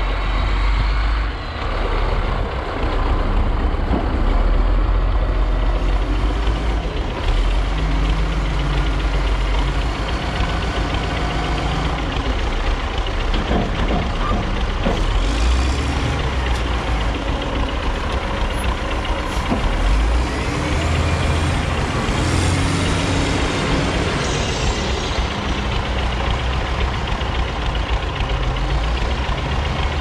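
Wheel loader's diesel engine running steadily, its note rising and falling as the loader lifts and dumps a bucket into a trailer.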